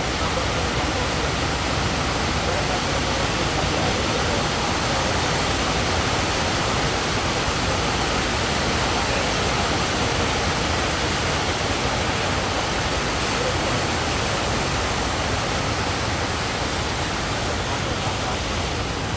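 Steady rushing roar of heavy surf, even and unbroken, with no single waves standing out.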